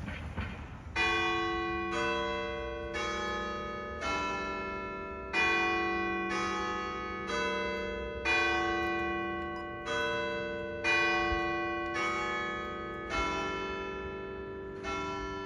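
Church bells ringing: a strike roughly every second, starting about a second in, each ringing on and fading under the next. The strikes come from several bells of different pitch.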